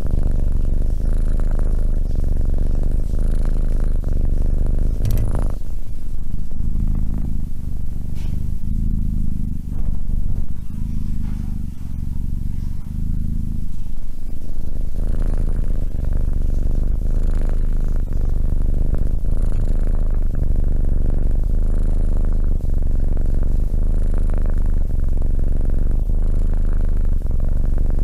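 Tabby kitten purring close to a microphone: a steady low purr that softens for a few seconds in the middle.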